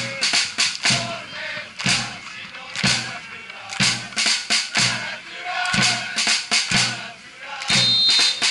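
Football supporters' drum beating a steady rhythm, about one heavy stroke a second with lighter strokes between, under the supporters' chanting. Near the end a short high whistle tone sounds.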